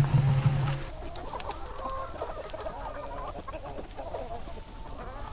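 A flock of hens clucking busily as they crowd in to eat freshly poured feed. A low hum sounds at the start and stops about a second in.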